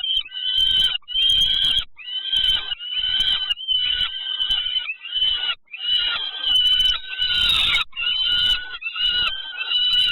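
Nestling birds calling in the nest, a rapid, nearly continuous series of shrill, pitch-bending calls: chicks begging for food.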